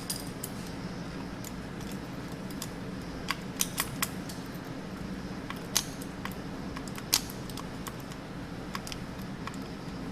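A few separate sharp metallic clicks of pliers tightening a nut on a washing machine's door-lock switch, over a steady low hum.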